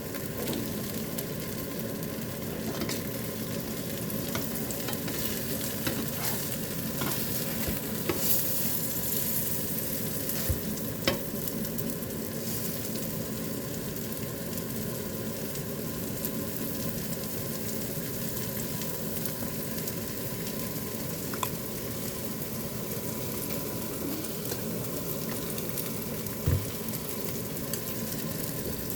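Glutinous rice cakes (chapssal-tteok) sizzling steadily as they fry, with a few short clicks and knocks here and there.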